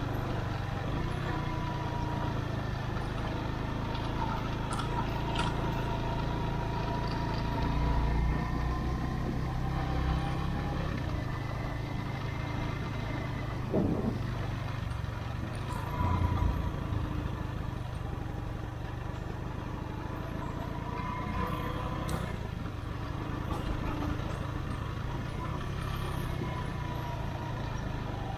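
Motorcycle engine running steadily while riding, with two brief low rumbles about 8 and 16 seconds in.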